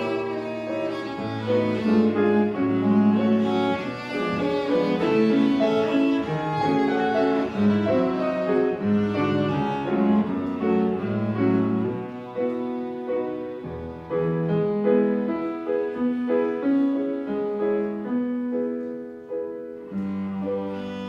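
Cello playing a slow, singing melody with piano accompaniment.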